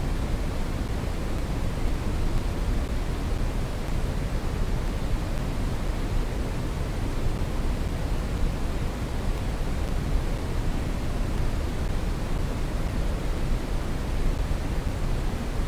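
Brown noise: a steady, even rumbling hiss with most of its energy in the bass, fading towards the treble, and no change in level.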